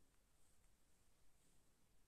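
Near silence: faint room hiss with a few very faint ticks.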